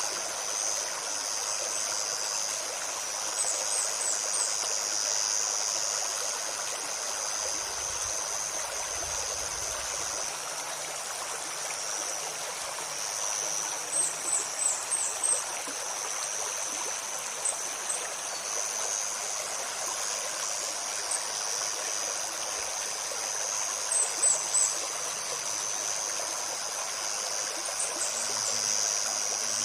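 Shallow forest stream babbling steadily, under a continuous high-pitched insect buzz. Small birds give short runs of quick, high chirps every few seconds, loudest about halfway through and again near the end.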